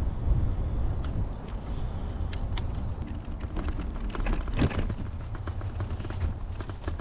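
Low, steady rumble of wind on the microphone and tyres rolling as a Brompton folding bike is ridden along a road and then a gravel path. Scattered clicks and rattles come from the bike and path, thickest about four and a half seconds in.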